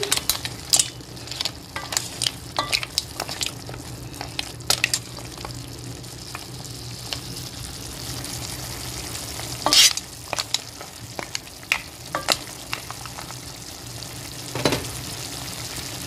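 Mussels, clams and shrimp simmering in a pan with a steady sizzle while a wooden spoon stirs them. There are sharp clicks and knocks of the spoon and shells against the pan, many in the first few seconds, a louder knock about ten seconds in and another near the end.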